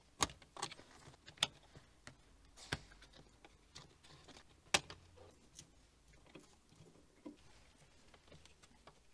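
Scattered sharp clicks and faint ticks of plastic clips and wires being handled and pulled free from a car's wiring harness. The clicks come irregularly, the loudest about a second apart in the first five seconds.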